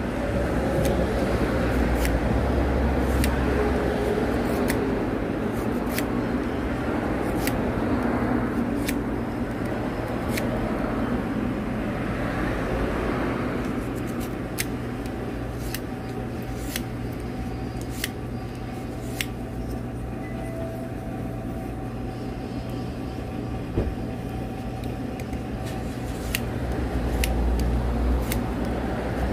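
A small knife whittling a thin wooden stick for a handmade fishing float: irregular small sharp clicks over a steady low rumble.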